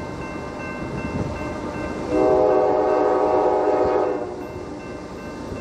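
CSX GE diesel locomotive leading an intermodal freight train approaches with a steady engine and rail rumble. About two seconds in it sounds its multi-note air horn in one blast of about two seconds.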